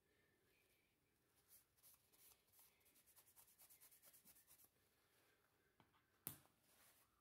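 Near silence with faint handling sounds: a quick run of soft rubbing strokes from a paper towel wiping a metal block, then a single sharp click near the end as a small metal block is set down on a round metal base.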